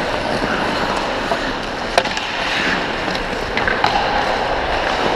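Ice hockey skates scraping and gliding on rink ice, with a sharp clack about two seconds in and another near four seconds.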